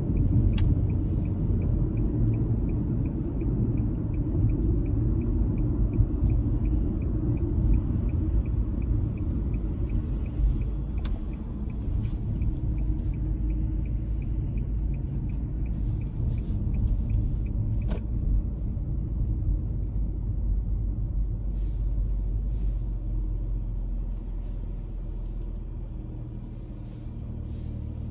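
Car driving, with a steady low rumble of road and engine noise. A light, evenly spaced ticking runs under it and stops about two-thirds of the way through, and the rumble eases near the end.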